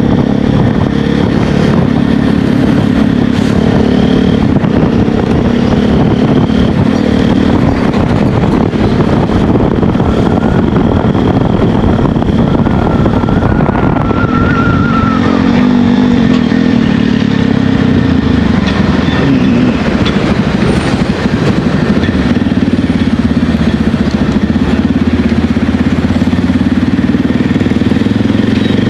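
Motorcycle engine running steadily at road speed, with heavy wind noise over the microphone. A short rising whistle-like tone comes about halfway through.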